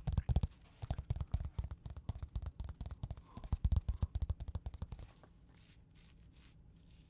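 Rapid fingertip tapping and scratching on a hard black rounded object held close to the microphone, stopping about five seconds in and leaving only a few faint taps.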